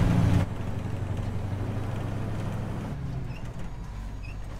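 Truck engine running steadily while driving, heard from inside the cab. It is louder for the first half-second, then drops abruptly to a lower, even hum. Two faint high chirps come near the end.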